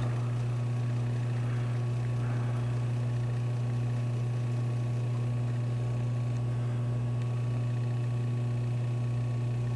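Steady low electrical hum, mains hum with a ladder of fainter overtones above it, unchanging throughout.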